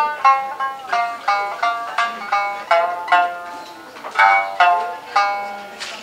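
Shamisen playing a kouta accompaniment, plucked with the fingertips: a run of single notes, about three a second, each ringing briefly and fading, with a short pause a little past the middle.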